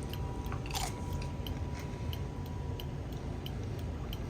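Steady, faint ticking, between two and three ticks a second, over a low hum, with one brief short noise about a second in.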